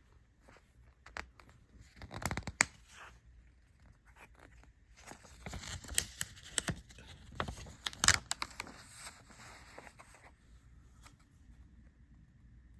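DVD box-set packaging being handled and torn open: crinkly tearing and scraping with sharp clicks, in a short bout about two seconds in and a longer one from about five to nine seconds in.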